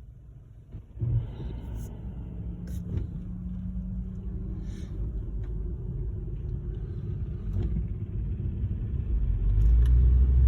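Car driving along, its engine and road rumble heard from inside the car; the rumble starts suddenly about a second in and grows louder toward the end.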